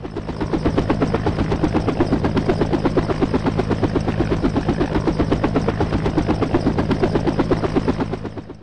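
Helicopter rotor thudding steadily, about eight beats a second, over a steady low engine tone. It fades in at the start and fades out at the end.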